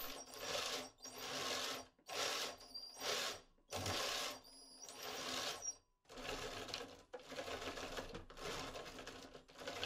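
Brushless motor driving a 3D-printed two-disc cycloidal reduction gearbox, whirring in about six short surges over the first six seconds with a faint high whine, then a quieter, uneven whirr. The stop-start running fits the sensorless skateboard motor driver struggling to control the motor.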